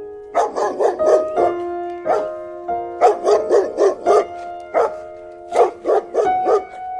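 A dog barking in quick runs of several short, sharp barks, over soft piano music.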